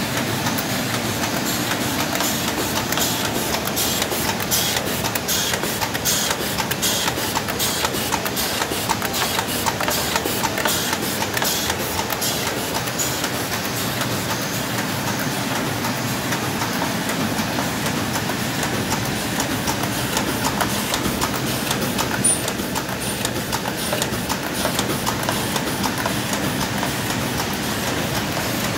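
Autobond Multi 76 thermal laminator with sheet feeder and flying knife cross-cutter running at production speed, a steady mechanical din with rapid clicking that is busiest in the first half, as sheets are fed, laminated with thick PET film on both sides and cut.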